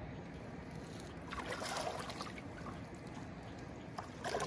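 Splashing in shallow water as a hooked fish thrashes at the rocky river edge, over the steady rush of the river. The splashing comes in two bursts, about a second and a half in and again near the end.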